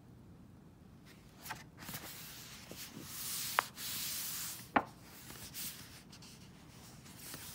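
Paperback coloring book being opened: the cover and paper pages rub and rustle against each other and the hand for a few seconds, with two sharp ticks about a second apart in the middle. The rustle starts about a second in and dies down near the end.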